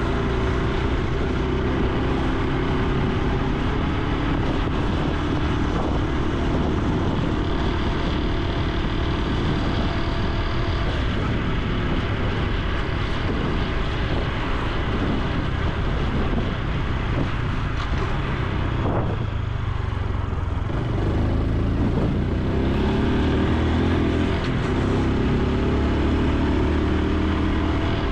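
Honda Super Cub C125's single-cylinder four-stroke engine running under way, with steady wind and road rush on the camera microphone. The engine note eases briefly about two-thirds through, then picks up again.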